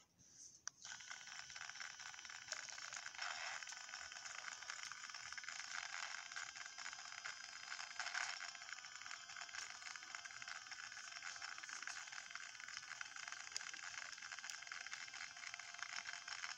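Battery-powered Real Steam Percy toy train engine switched on about a second in, its motor and gears running steadily while it is held off the track.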